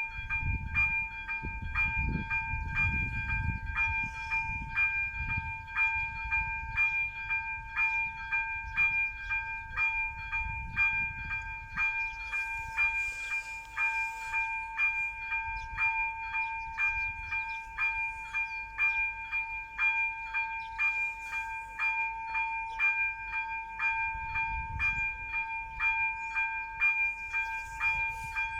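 ZV-02 electronic level-crossing bell ringing with an even, repeated ding of about one and a half strokes a second: the crossing's warning is active. A low rumble comes and goes underneath.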